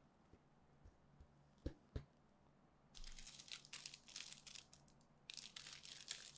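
Faint crinkling and rustling of a small sticker and its backing paper being handled and peeled, in short clusters over the second half, after a few soft taps.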